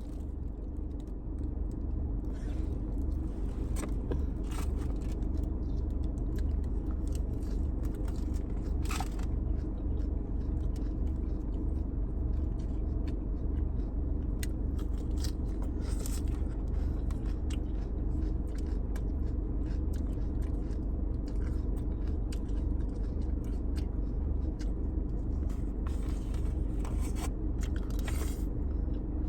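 Someone eating a teriyaki chicken takeout plate: utensil scraping on the container and chewing, heard as scattered short clicks and scrapes over a steady low hum.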